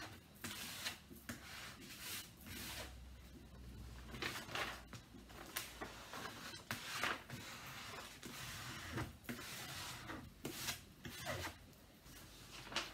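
Protective film of a diamond painting canvas being peeled back and handled, giving repeated rustles and crinkles of the sheet against the canvas.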